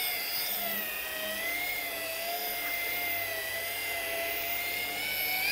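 Electric rotary car polisher running with its pad pressed on the paint, a steady motor whine that wavers slightly in pitch under the load.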